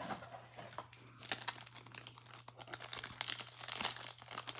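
Foil wrapper of a Topps baseball card pack crinkling and tearing as it is pulled open by hand, the crackle getting louder in the last second or so.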